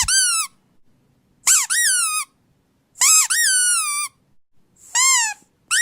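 Squeaky dog toy squeezed over and over: about five high-pitched squeaks, each rising and then falling in pitch, coming about a second and a half apart.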